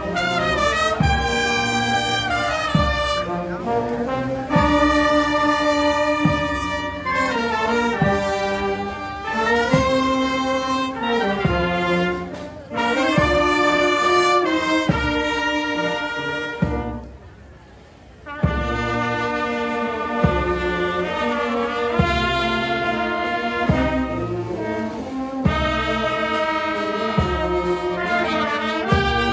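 Street marching band of clarinets, flutes, saxophones and brass playing a tune over a steady drum beat. The band stops for about a second and a half past the middle, then starts up again.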